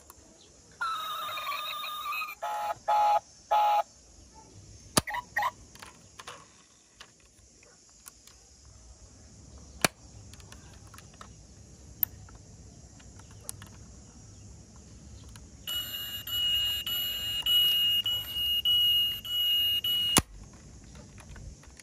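Electronic beeps and alarm-like tones from a toy car's sound module. A short pitched chirp sounds about a second in, followed by a few quick beeps. Near the end a steady warbling alarm tone lasts about four and a half seconds, with small clicks from handling the diecast model scattered in between.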